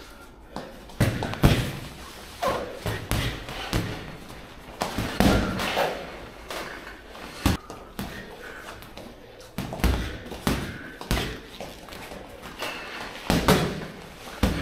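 Boxing gloves landing during sparring: irregular padded thuds and slaps of punches, some coming in quick flurries.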